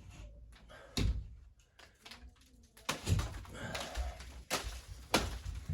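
A few sharp knocks and thumps with softer scraping between them: wet ceiling drywall being cut, pried and handled.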